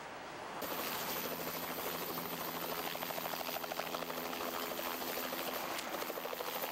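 Medical helicopter lifting off from the ground: the rotor beats in a fast, even pulse over a steady engine hum. The sound begins about half a second in.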